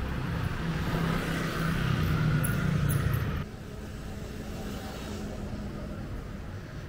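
Street traffic: a motor vehicle's engine running close by. About three and a half seconds in it drops suddenly to a lower, steady traffic hum.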